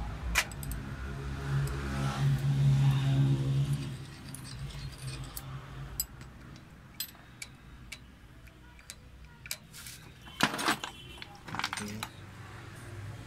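Small steel parts of a diesel injection pump's head and rotor clicking and clinking against each other and the metal tray as they are handled, over a low hum for the first few seconds. A louder clatter of metal tools comes near the end.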